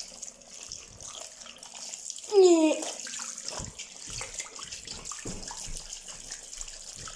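Tap running into a bathroom sink, the stream splashing over a rubber dinosaur hand puppet held under it. About two and a half seconds in, a short squeal falls in pitch.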